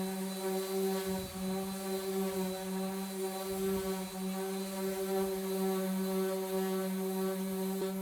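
Power sander running steadily with a constant motor hum while sanding dried body filler on fiberglass.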